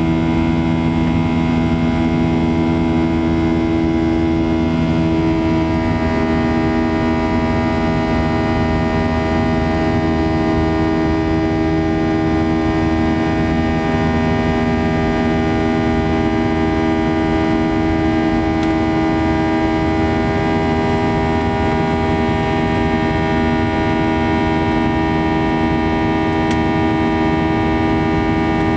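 Boeing 737-800's CFM56 turbofan engines heard inside the cabin during the climb after takeoff: a steady loud buzz made of many held tones over a rushing drone. A few of the tones ease slightly about five seconds in.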